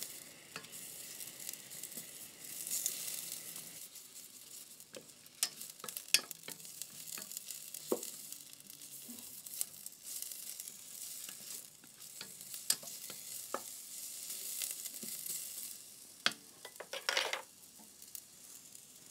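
Sliced onions sizzling in olive oil in a copper sauté pan over high heat as they brown, stirred with a wooden spatula that scrapes and knocks against the pan now and then.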